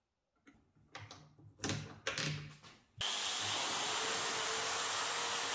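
Scattered knocks and clatter of metal and tools being handled, then about three seconds in a power tool begins running at full speed, a loud steady hiss with a high whine.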